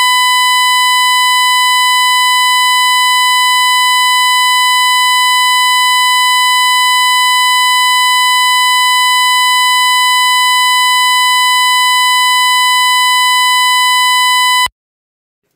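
A continuous electronic beep tone at one unchanging pitch and level, with nothing else audible behind it. It cuts off suddenly about a second before the end.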